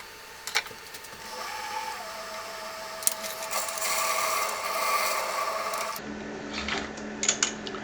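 Small lathe running, with a steady whine, as the cutting tool scrapes into a 3D-printed plastic knob to cut a recess. About six seconds in the sound changes abruptly to a lower hum with a few clicks.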